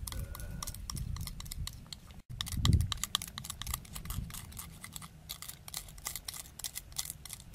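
A spoon stirring and scraping inside a small bowl: a quick, uneven run of light clicks and scrapes, with a dull thump about two and a half seconds in.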